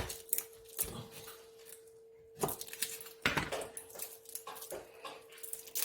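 Crushed garlic cloves being peeled by hand: papery skins crackling and rustling, with scattered clicks and knocks of handling on the work surface. A faint steady hum runs underneath.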